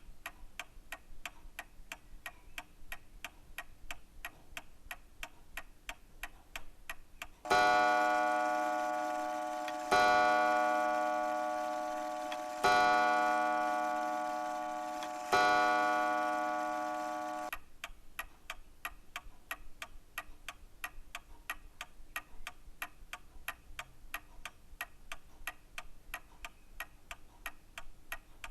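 Clock ticking quickly and steadily, with four loud chime strikes about two and a half seconds apart in the middle, each ringing down before the next, and the last cut off short.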